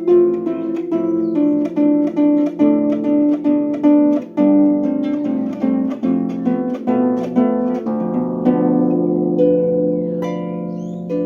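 Solo instrumental improvisation: single ringing notes played in a steady run, about two or three a second, easing into longer held notes in the last few seconds.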